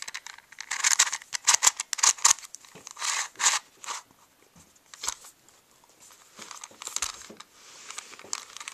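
Plastic Meffert's Megaminx puzzle being turned by hand: bursts of quick clicking and clacking as its faces turn, dense in the first four seconds, then sparser clicks. The puzzle is stiff and not yet lubricated.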